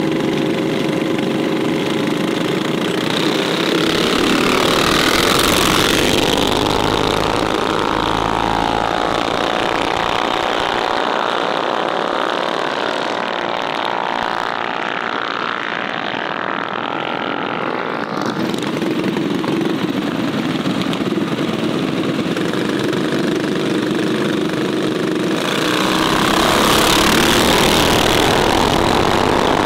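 Mini bike engines running and revving, several at once, with the pitch rising and falling. They get louder about five seconds in and again near the end.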